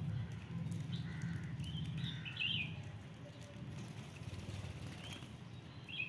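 Budgerigars chirping softly, a few short chirps bunched together a second or two in and a couple more near the end, over a low steady rumble.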